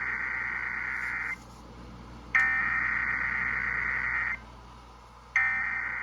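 Emergency Alert System SAME header data bursts broadcast over FM radio: three bursts of electronic data tones, each about two seconds long with about a second's pause between them. The first is already under way and the last runs on past the end.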